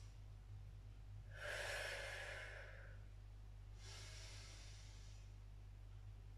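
A woman taking slow, deep breaths in and out: a long audible breath of about a second and a half, then a second, fainter one.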